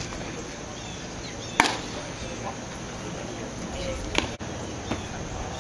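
A pitched baseball cracking sharply at home plate about a second and a half in, followed by a second sharp crack a little after four seconds, over a steady hum of outdoor background noise.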